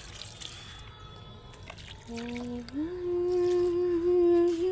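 A woman humming a tune: a lower held note about two seconds in, then a step up to a higher note that she holds. Before that, a faint trickle of water being poured from a bucket.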